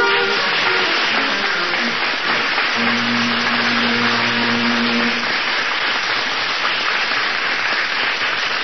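Orchestral music cue over studio audience applause, with a low note held for about two seconds midway.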